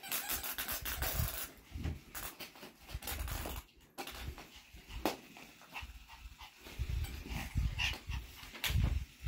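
Small dog panting while it tugs and shakes a plush toy tied to a rope, with irregular low thuds from the tussle.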